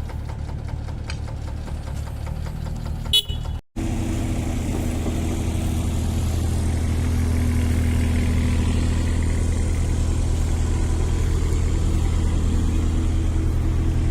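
Diesel engine of a mini excavator or site dumper running steadily. About three seconds in there is a short high toot, then the sound breaks off for a moment before the engine runs on.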